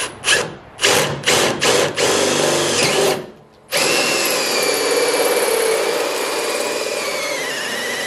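Power drill spinning a hole saw into the hood of a 1968 Chevrolet Chevelle: several short trigger pulses in the first two seconds, then steady cutting. It stops briefly about three and a half seconds in, then runs steadily again, the motor's whine dipping in pitch as the saw bites.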